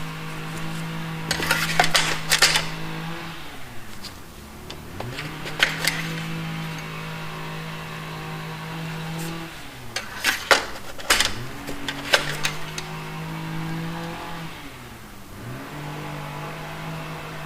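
An engine running at a steady high speed. About every four and a half seconds it sags in pitch, then picks straight back up. A few sharp clicks and clatters of handling sound over it.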